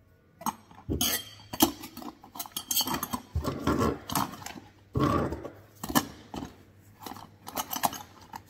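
Metal hand tools clinking and rattling against each other as they are rummaged through in a canvas tool bag.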